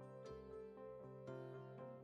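Quiet background music: a plucked-string melody, about two notes a second.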